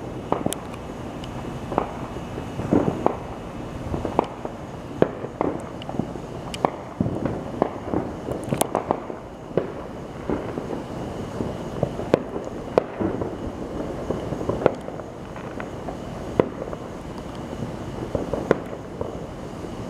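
Fireworks going off far away: irregular sharp pops and booms, about one or two a second, over a continuous rumble of more distant bursts.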